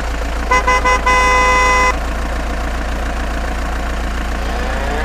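A horn tooting three short times and then once for about a second, starting about half a second in, over a steady low engine drone.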